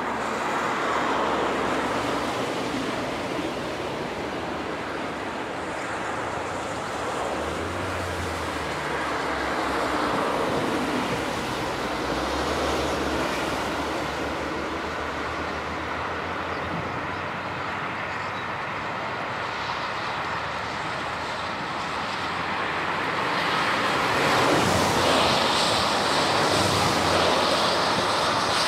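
Three-cylinder Peppercorn A1 Pacific steam locomotive Tornado running at speed with its train of coaches, heard across open fields as a steady rushing noise mixed with wind on the microphone. It grows louder and brighter near the end.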